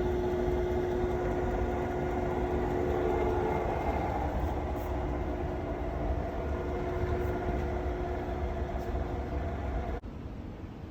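Alzmetall AB35S drill press running with a steady mechanical hum. Its held tone fades about halfway through, and the sound drops off abruptly near the end.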